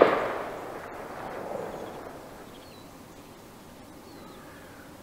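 Rolling echo of a single gunshot, fired just before, dying away over about two and a half seconds with a second swell about a second and a half in; taken for hunters shooting nearby. Faint bird chirps follow.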